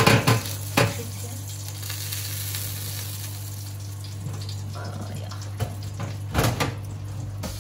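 Hot roast goose sizzling on an oven rack, its fat spitting in the heat, over a steady low hum. Sharp metal clinks of a meat fork and the wire oven rack come right at the start, about a second in, and again twice near the end.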